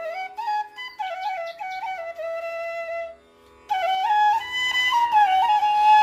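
Background music: a flute melody over a steady drone, with a short break a little past halfway.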